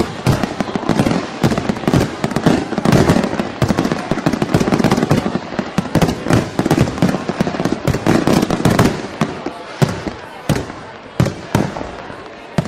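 Fireworks display: a rapid, continuous barrage of bangs and crackles that thins to fewer, separate bangs near the end.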